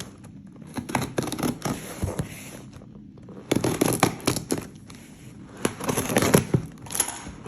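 A shipping package being opened by hand: irregular bursts of tearing, scraping and crackling packaging, heaviest about halfway through and again near the end.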